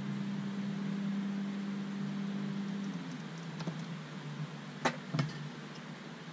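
Boat motor running steadily at trolling speed, its hum dropping in level about three seconds in, with two sharp clicks close together near the end.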